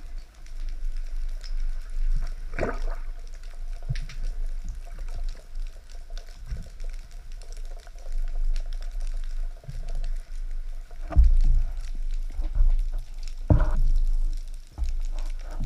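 Underwater sound through a camera housing: a low, muffled water rumble with a steady fine crackle, and a few sharp knocks, one about three seconds in and two more near the end.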